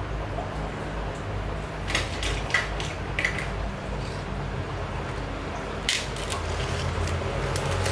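A few light clicks and taps of watercolour paint tubes being handled in their box: several around two to three seconds in, another just before six seconds. A steady low hum runs underneath.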